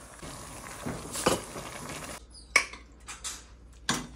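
Utensils knocking and scraping against a stainless steel pot as pasta is stirred and ladled out: a few sharp clinks over a steady hiss that stops about halfway through.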